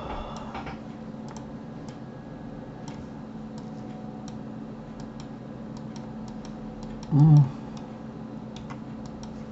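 Computer mouse buttons and keys clicking irregularly over a low steady hum, with one brief voice sound about seven seconds in.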